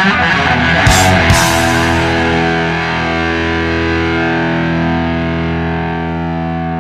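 The ending of a rock song: two last drum and cymbal hits about a second in, then a distorted electric guitar chord held and slowly fading out.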